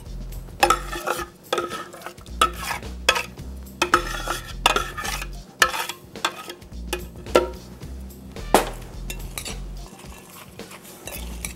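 Metal spoon stirring and tossing a wild rice salad in a glass mixing bowl, with irregular scrapes and clinks of the spoon against the glass.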